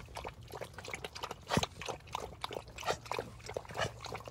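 Dogs drinking and eating from bowls: irregular wet lapping and chewing clicks.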